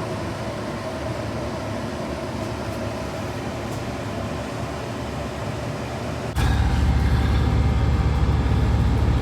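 Steady mechanical hum that switches abruptly about six seconds in to a louder, deeper steady rumble.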